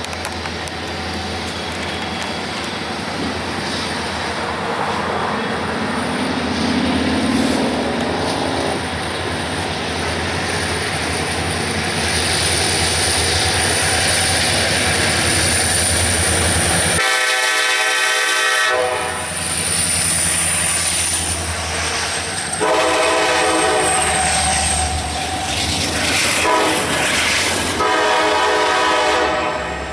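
Double-stack container freight train passing close below: the diesel locomotives' engine rumble builds as they approach and go by, followed by the cars rolling past with high wheel squeal. Three shrill pitched sounds, a second or two each, come after the locomotives pass.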